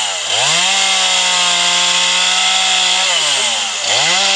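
Chainsaw revved to full throttle and held there, dropping briefly to idle about three seconds in and then revved up again, cutting a notch into a dead tree.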